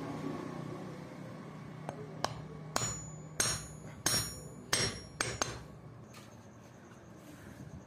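About eight hammer blows in quick succession, each with a short metallic ring, while a reworked claw-hammer axe head is driven onto its wooden handle on an anvil.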